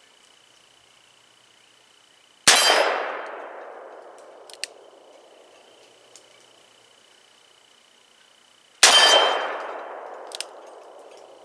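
Two shots from a Rock Island Model 200 .38 Special revolver fired single action, about six seconds apart, each followed by a long ringing decay as the steel targets are struck. Both rounds go off, with no light-strike misfire. A short click comes about two seconds after each shot.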